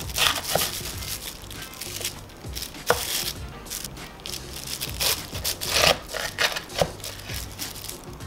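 Chef's knife cutting through cabbage kimchi on a plastic-wrapped wooden cutting board: a handful of irregular knife strokes, with the plastic wrap crinkling under the blade and hand.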